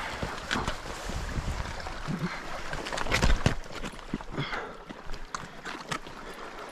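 Footsteps in waders splashing and scraping through shallow water over flat rock, in irregular steps, the loudest about three seconds in.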